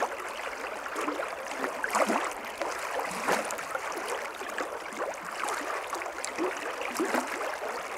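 A small, fast-flowing stream gurgling: a steady rush of water with many small splashes and bubbling sounds as it ripples over its bed.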